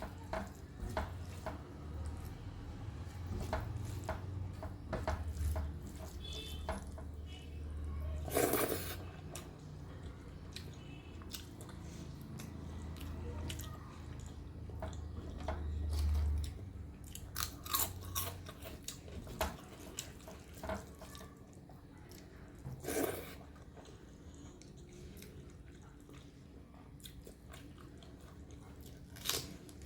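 Close-up eating sounds: chewing and wet mouth clicks as a person eats rice, dal and fried vegetables, with two louder crunching bites, one about a third of the way in and one past two-thirds.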